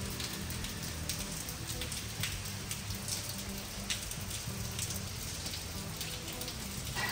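Steady rain falling, with individual drops splatting sharply close by.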